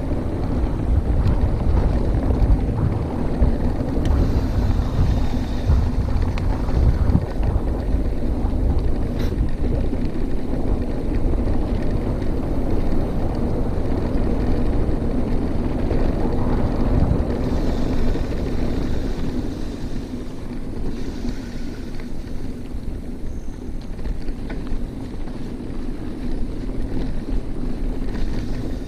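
Mountain bike rolling along a dirt trail: tyres rumbling over the ground with a steady hum, and wind buffeting the microphone. A little quieter in the last third.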